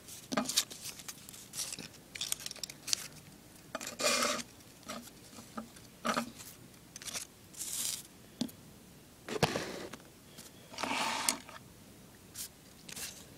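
Paper being handled on a wooden tabletop: a few short rustles and scrapes as folded sheets and cut pieces are slid and moved, with light taps between.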